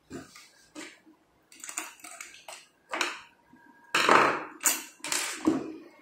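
Handling noise from a smart door lock's black interior body and lever handle being fitted against a mock door panel: a run of separate knocks, clatters and scrapes, loudest between about four and five and a half seconds in.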